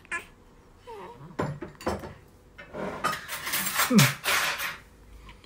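Newborn baby making short, falling grunting cries, half laugh and half whimper. A breathy rustling hiss runs through the middle, with a few soft clicks.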